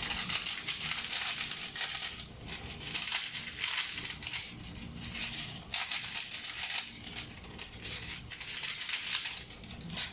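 Spatula clinking and scraping in a frying pan as a stir-fry is stirred, in irregular strokes.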